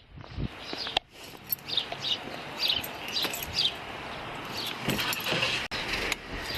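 Small birds chirping in quick, short, falling notes, with a sharp click about a second in and a car door latch clicking open near the end.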